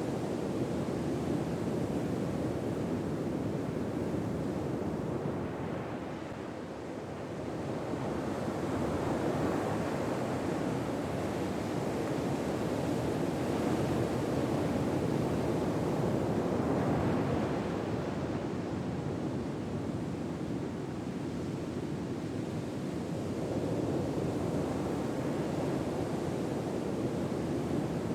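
Ocean surf: a steady wash of waves that slowly swells and eases, with a wave rolling in every several seconds.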